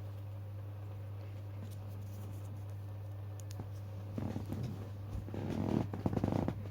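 A steady low hum, with irregular rustling and clicking in the last couple of seconds.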